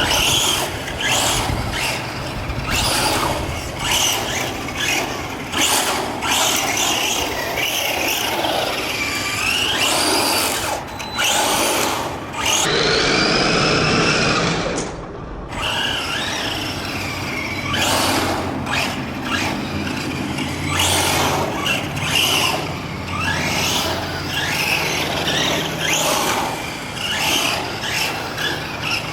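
Helion Select Four 10SC electric RC short-course truck driving at speed. The whine of its motor and gears rises and falls over and over as it accelerates and slows, with tyre noise and clattering knocks. One longer, rising whine comes about halfway through.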